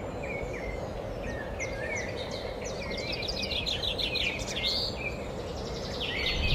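Several birds chirping, a dense run of short, quick chirps and trills over a steady background hiss.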